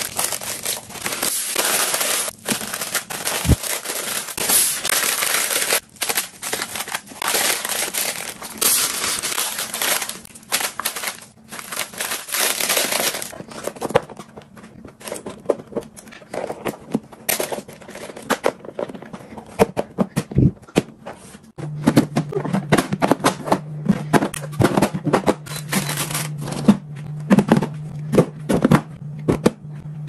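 Continuous crinkling of disposable plastic gloves and wrapping as meat is wrapped and packed, for about the first 13 seconds. After that come sparser clicks and taps of clear plastic food containers and their lids being handled and pressed shut. About two-thirds of the way through, a steady low hum starts under the clicks.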